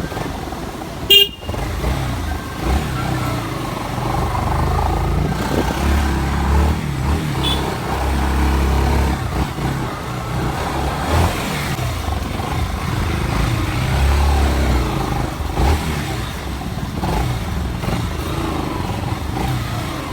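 Motor vehicles and motorbike engines running, a low rumble that swells and fades, with one short, loud horn toot about a second in.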